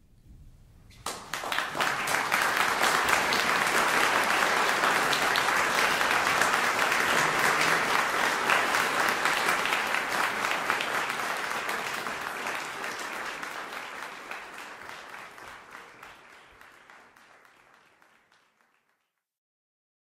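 Audience applause, the kind that closes a live classical recording, breaking out suddenly about a second in, then fading out gradually over the last several seconds.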